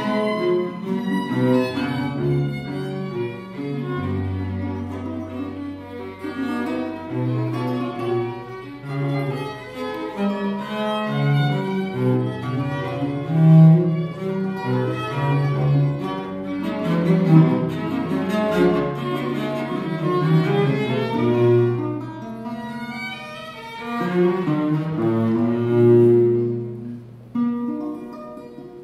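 A trio of period violin, cello and romantic guitar playing a classical minuet. The bowed violin and cello carry sustained melodic lines over the guitar, with a brief lull near the end of a phrase before the playing resumes.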